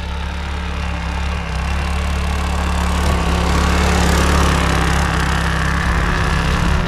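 Predator 212 single-cylinder engine of a tracked mini bike running steadily, getting louder over the first few seconds.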